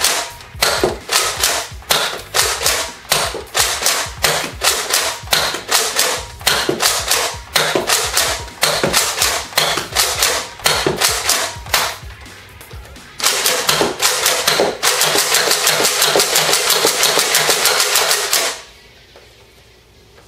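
Nerf Halo Bulldog pump-action dart blaster being pumped and fired again and again: sharp plastic clacks about three a second for roughly twelve seconds. After a short pause comes a faster, denser run of clacks lasting about five seconds, which stops abruptly.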